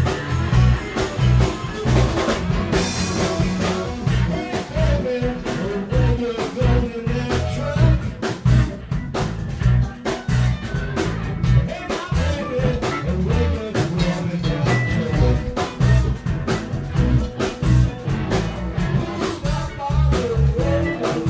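Live rock band playing a blues boogie: drum kit, bass guitar, keyboards and electric guitars together, with a wavering lead melody over a steady beat.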